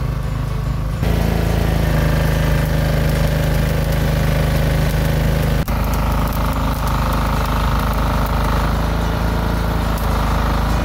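An engine running steadily with a low drone. Its sound changes suddenly at about 1 second and again past 5 seconds in.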